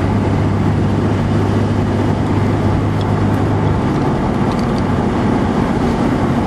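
Steady road and engine drone inside a moving car's cabin. The low hum eases about four seconds in.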